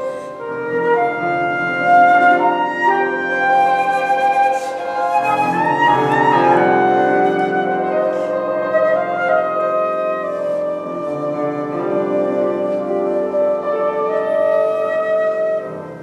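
Concert flute playing a melody over grand piano accompaniment, the flute's notes changing quickly above sustained piano chords.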